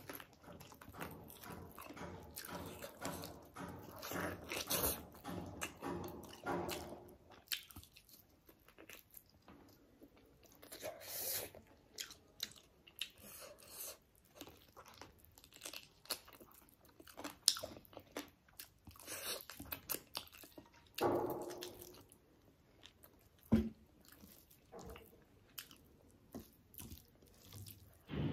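Close-up mouth sounds of eating chicken leg curry and rice by hand: biting and chewing the meat, with many short wet clicks and lip smacks. One sharper knock comes a little past the middle.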